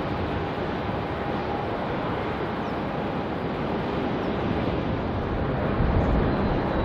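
Distant jet roar from the Rolls-Royce Trent XWB engines of an Airbus A350-900 taking off, mixed with wind buffeting the microphone. The low rumble grows louder toward the end.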